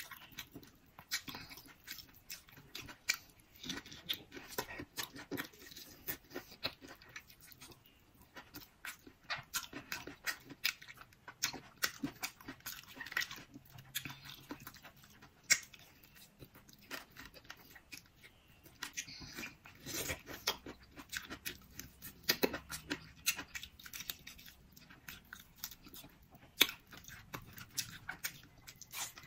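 Close-miked chewing and mouth sounds of a person eating salmon and tomato: a steady run of irregular wet clicks and smacks, with a few louder clicks here and there.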